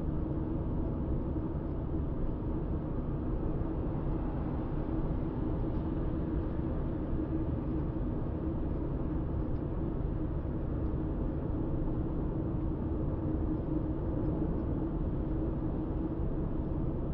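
A car cruising steadily on an open road, heard from inside the cabin: an even rumble of engine and tyre noise with a constant low hum.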